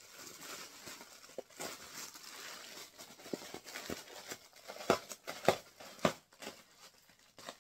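A scalpel cutting through package wrapping, with crinkling and scraping in irregular strokes, a few sharper ones past the middle.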